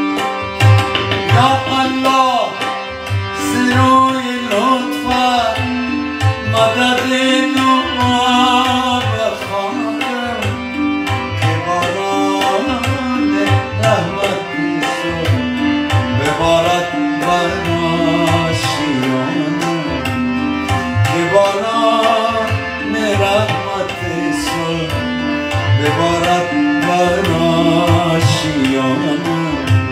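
Tabla drumming with a harmonium melody, a man singing at times: Afghan devotional song performed live.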